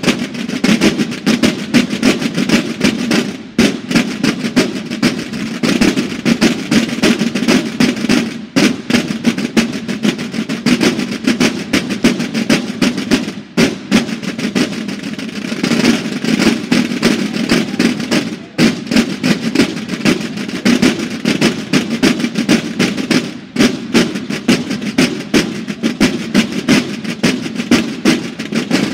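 A drum line of marching snare drums played in unison, a fast, dense pattern of strokes and rolls with short breaks about every five seconds.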